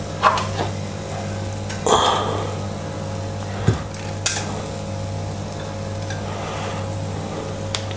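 Waffle batter pouring from a glass jug onto a waffle iron, with a few light clinks and scrapes of a wire whisk against the jug over a steady low hum.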